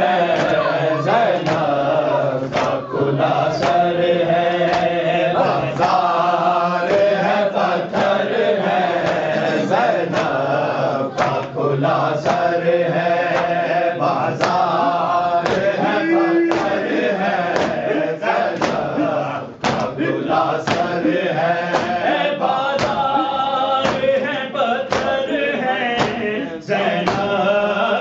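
Noha, an Urdu mourning lament, chanted continuously by voices, with a regular beat of sharp strikes running under the chant.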